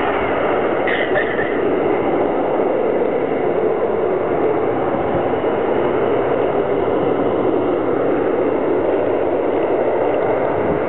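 Jet engines of a formation of display jets climbing away after a formation takeoff: a steady, even roar.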